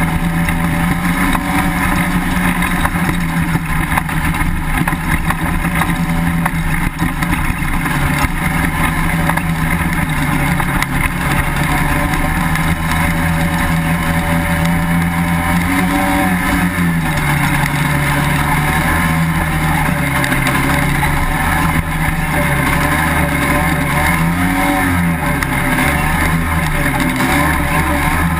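Pilot FL400 dune buggy's engine running steadily as it drives across sand. Its pitch drops a little about halfway through and wavers up and down near the end as the throttle changes.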